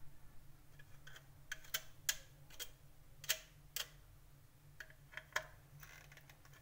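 Irregular sharp clicks and taps of a plastic switch board and its wiring being handled, about ten in a few seconds, over a faint steady low hum.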